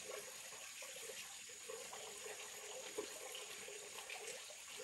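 Water running and trickling steadily into a pond, with one brief tap about three seconds in.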